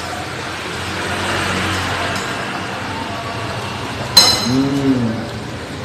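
Soft eating noises, then a spoon clinks sharply once against the dish about four seconds in, ringing briefly, followed by a short hummed voice sound.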